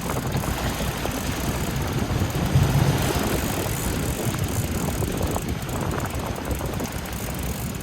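Boat engine running steadily on the open sea, with wind buffeting the microphone; the sound swells briefly about two and a half seconds in.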